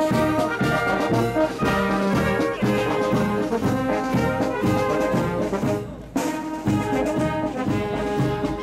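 Marching brass band playing a march, with trombones, trumpets and sousaphones over a steady drum beat. The music dips briefly about six seconds in.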